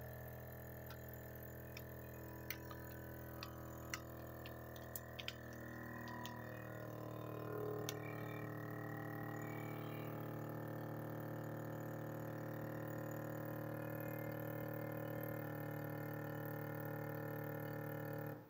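Adler AD 4503 vacuum sealer's pump running steadily as it draws the air out of a plastic vacuum bag, with scattered crackles and ticks from the bag collapsing during the first several seconds. The hum changes slightly a few seconds before the end, then stops abruptly once the cycle finishes.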